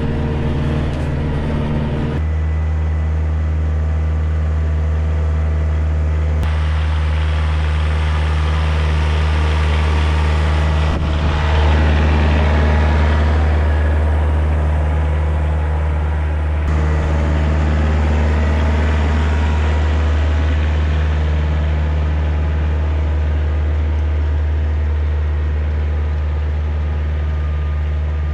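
Kioti DK40se diesel tractor engine running steadily with a deep hum, getting louder for a few seconds near the middle.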